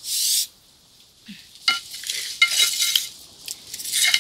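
Spatula working in a metal pan of fried chicken: a short scraping hiss right at the start, then a run of ringing metal clinks against the pan and plate from under two seconds in.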